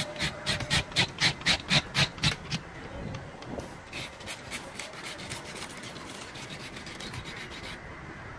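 A hand fish scaler rasping against the scales of a large fish in quick repeated strokes, about four a second. The strokes are loud for the first couple of seconds, then go on more softly.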